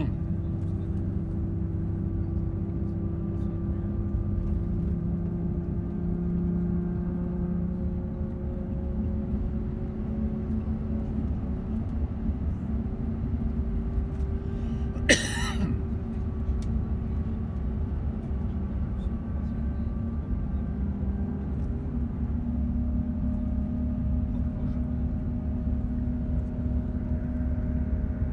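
Inside an intercity bus on the move: steady engine and road rumble, with the engine's tones slowly rising and falling. A single sharp knock sounds about halfway through.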